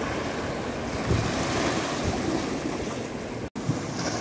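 Sea waves washing against a rock jetty, with wind buffeting the microphone. The sound cuts out for an instant about three and a half seconds in.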